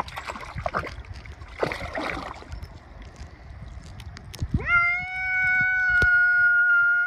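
Domestic cat giving one long, steady meow lasting about three seconds, starting about two-thirds of the way through, while it wades in shallow river water. Before it there is scuffling noise as the cat climbs down over the rocks.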